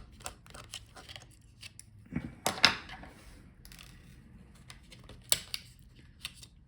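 Small clicks and ticks of a laptop's internal parts being handled as the cover over the storage comes off and the NVMe SSD is taken out, with a louder scrape about two seconds in and a sharp click a little past five seconds.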